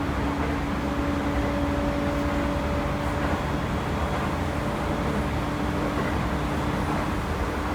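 Toei 10-300 series electric train running at steady speed, heard from inside the car: a constant rumble with a steady whine, and a higher tone that joins about a second in and fades out near six seconds.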